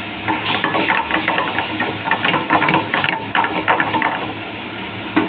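Metal ladle clinking and scraping against a pan as masala gravy is stirred: a rapid, irregular clatter of clicks over a steady low hum.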